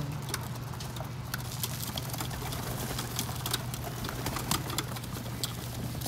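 Flock of feral rock pigeons cooing and feeding close by, with many quick sharp taps of beaks pecking seeds off the roof and wings fluttering, over a steady low hum.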